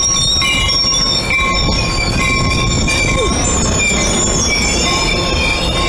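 Coaster bilevel passenger cars rolling past at close range: a steady rumble of steel wheels on rail, with several high, steady squealing tones above it.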